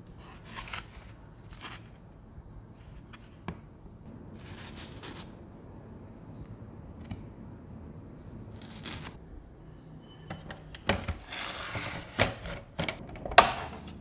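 Plastic parts of a mini evaporative air cooler being handled: light clicks and knocks from the black plastic pad frame, with brief rubbing and sliding as the paper cooling pad is worked out of it. The handling gets busier and louder in the last few seconds, with one sharp plastic click near the end.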